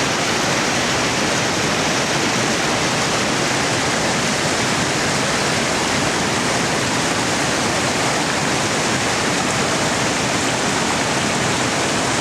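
Rushing water, such as a waterfall or fast stream, making a steady, even rush.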